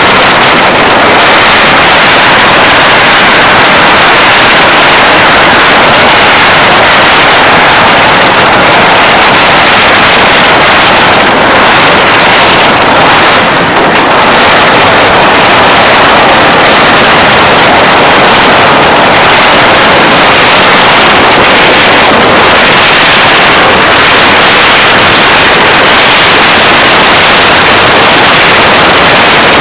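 A long string of firecrackers going off in a dense, unbroken crackle, very loud.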